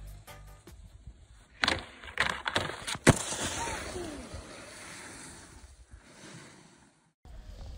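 Snowboard sliding and scraping across packed snow, with a few sharp knocks before it; the sound cuts off suddenly near the end.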